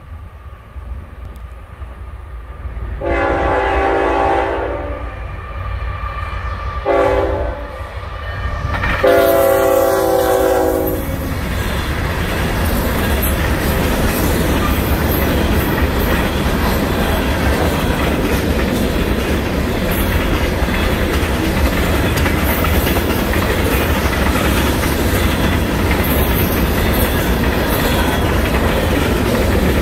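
Diesel freight locomotive's multi-tone air horn sounding three blasts for a grade crossing: long, short, long. Then the freight train passing, a steady rumble with wheels clattering over the rail joints.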